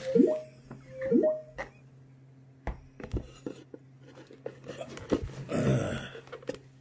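Close handling noise as a phone camera is set in place by hand. There are two brief pitched squeaks in the first second and a half, then scattered clicks and taps, and a rustle near the end, over a steady low hum.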